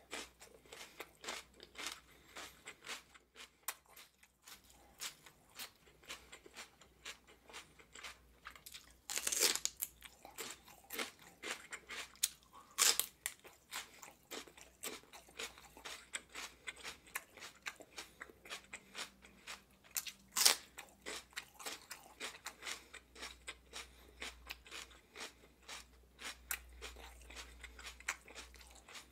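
Raw celery stalk being bitten and chewed: a steady run of crisp crunching, with a few louder snapping bites standing out, twice about a third of the way in and once about two-thirds in.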